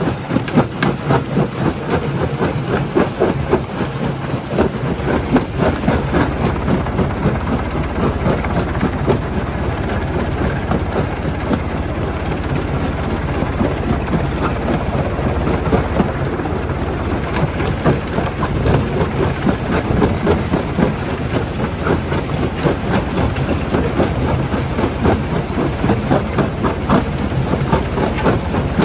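Stone crusher running under load, with rocks continuously clattering and cracking against each other and the machine in a dense, steady racket of many short knocks.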